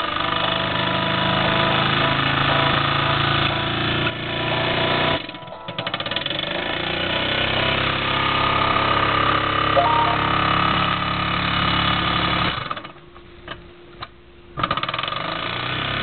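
Mamod TE1A model steam traction engine running at full speed: a fast, continuous mechanical clatter. It drops out briefly about five seconds in and again for about two seconds near the end, then picks up again.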